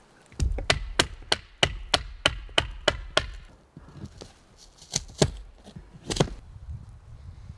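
A tool chopping into wood in a quick series of about ten strikes, roughly three a second, then a pause and a few single, sharper strikes.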